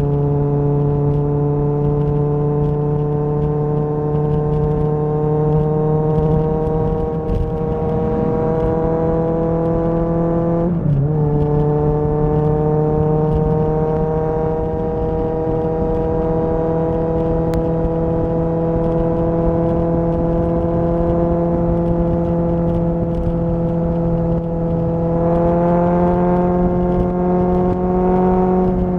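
Kawasaki ZXR inline-four motorcycle engine under way, its pitch climbing steadily as it pulls in gear. There is one quick gear change about eleven seconds in, a further rise in revs near the end, and then the throttle comes off.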